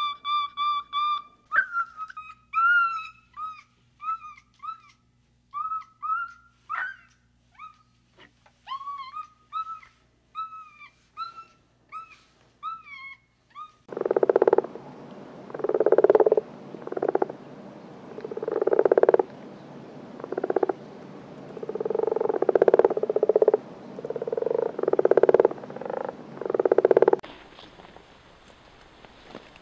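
A series of short, high whistled calls about once a second, then from about halfway a frog croaking loudly: about a dozen deep calls roughly a second apart, fading near the end.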